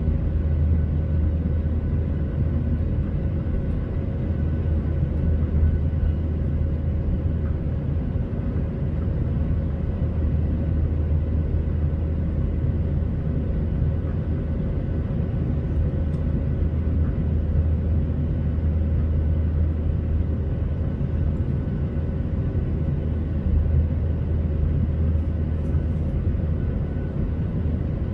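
Cabin noise of a Boeing 737-800 climbing out after takeoff: the steady low rumble of its CFM56-7B turbofan engines and airflow over the wing, with a faint steady hum running through it.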